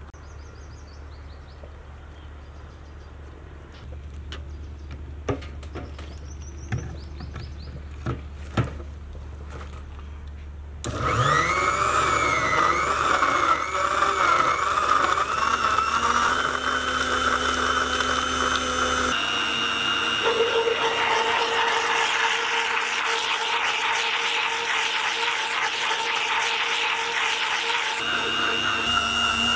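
A few sharp knocks, then a Sujata electric mixer-grinder starts about eleven seconds in, blending grapes with ice cubes and sugar into juice. Its whine wavers as it gets up to speed, then runs steadily and loud, its tone shifting a couple of times.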